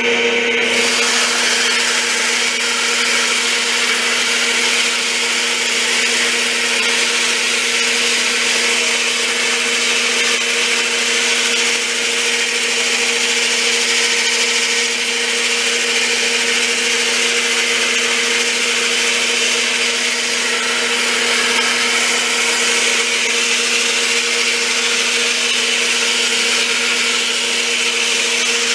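Metal lathe running steadily with its motor hum while a strip of sandpaper held around a spinning wooden dowel hisses against it, sanding the dowel down to size. The sanding hiss comes in just after the start and holds steady.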